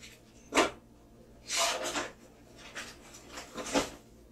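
Kit parts and packaging being handled: a sharp knock about half a second in, a burst of rustling and rubbing a second later, then smaller scrapes and a short knock near the end.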